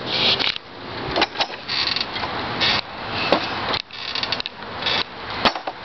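Metal swing set squeaking and creaking as a child swings on it, in a run of short, uneven squeaks as the seat hangers work back and forth.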